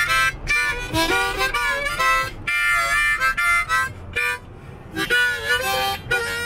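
Harmonica played in a run of short riffs, several notes sounding together and shifting in steps, with a brief pause about four seconds in. A low steady rumble of the car cabin lies underneath.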